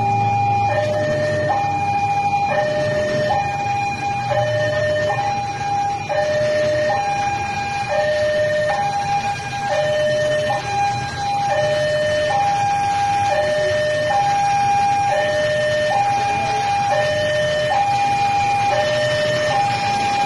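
Two-tone hi-lo siren, alternating evenly between a higher and a lower note, each held just under a second.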